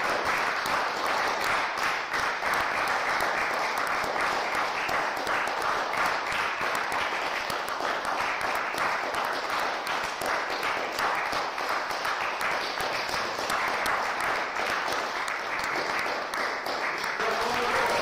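Audience applauding: a steady spell of many hands clapping.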